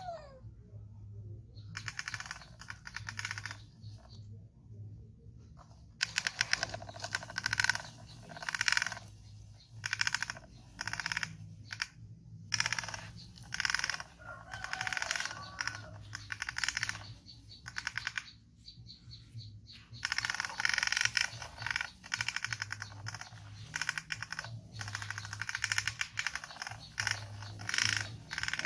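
Plastic toy truck clattering as it is dragged over a hard floor: rapid rattling clicks that come in bursts of one to several seconds with short pauses between.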